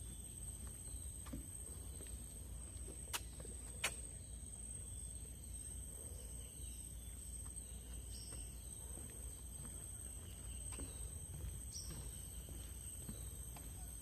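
Mangrove forest ambience: a steady high-pitched insect drone, a few faint short bird-like chirps, and a low rumble underneath. Two sharp clicks come a little after three seconds in.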